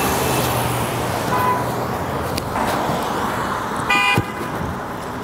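Road traffic noise from passing cars, with one short car horn toot about four seconds in.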